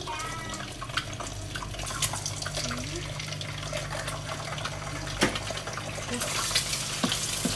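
Eggs frying in hot oil in a non-stick frying pan: a steady sizzle with scattered crackling pops, louder near the end.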